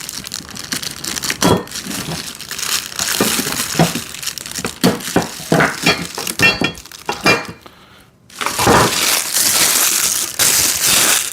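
Plastic packaging crinkling and crumpling as it is handled and pulled off, with scattered sharp crackles and knocks. The crinkling grows dense and loud in the last few seconds.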